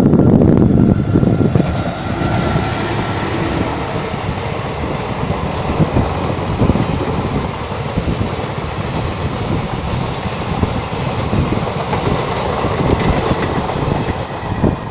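Electric-locomotive-hauled passenger train passing close by: loudest in the first second, then a steady rolling rush from the coaches with repeated wheel knocks over the rail joints.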